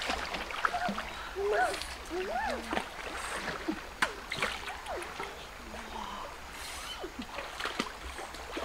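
Shallow river water sloshing and splashing around a person wading, with scattered short rising-and-falling calls over it.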